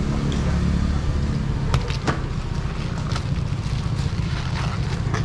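Steady low engine drone, with a few sharp clicks and knocks over it.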